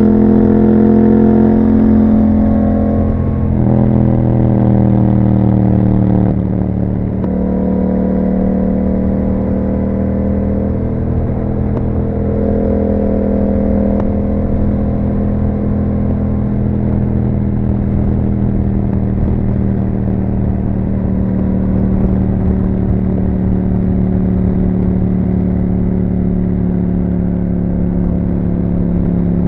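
Yamaha MT-07 parallel-twin engine running through an Akrapovic exhaust while riding. The engine note drops twice, about 3 and 6.5 seconds in, then holds a steady cruising pitch.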